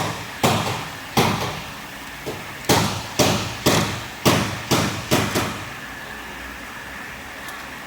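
Hammer blows on metal: about ten sharp strikes with a short ring after each, in quick uneven succession, stopping about five and a half seconds in.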